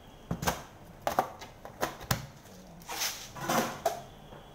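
Small dried red berries and a plastic tub being handled: several light clicks and knocks in the first two seconds, then two short rustling scrapes about three seconds in.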